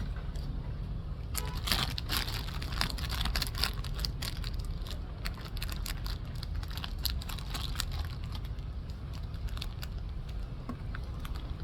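A run of quick, irregular small clicks and crinkles, as a food wrapper is handled and food is broken into pieces. They are thickest in the first half and thin out later, over a steady low hum.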